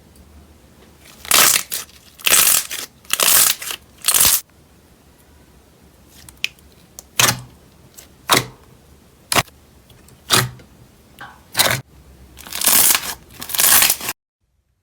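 Slime being squeezed and pressed by hand: a run of short, loud, noisy squelches and snaps. Several longer bursts come first, then single sharp snaps about a second apart, then two longer bursts before the sound cuts off suddenly.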